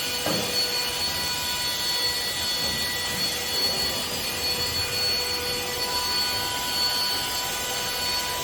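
10000Pa portable handheld vacuum cleaner running steadily: a constant motor whine over rushing air.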